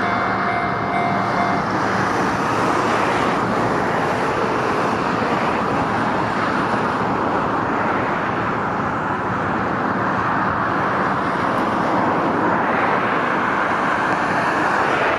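Freight train wagons rolling past at speed on the Tokaido main line, a steady loud rushing rumble with no letup. A few faint steady tones stop about a second and a half in.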